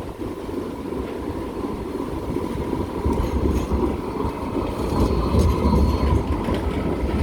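Alstom Citadis light rail tram moving off and passing, the rumble of its wheels and running gear growing louder as it goes by, with a faint steady whine.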